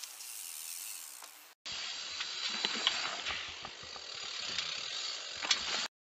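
Dirt-jump bike rolling over a dirt track, heard close from the handlebars: tyre noise and a rattle of many small clicks and knocks, cutting off abruptly near the end. Before it, a steady hiss that ends suddenly about a second and a half in.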